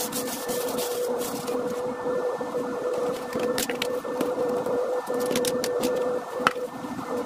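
Small electric motor of a polishing tool running with a steady whine, with scattered light clicks and ticks; the whine dips briefly near the end.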